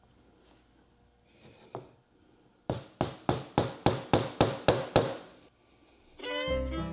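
Claw hammer driving a nail through wet leather into a plywood board: a run of about nine quick, even blows, three to four a second. Fiddle and banjo music comes in near the end.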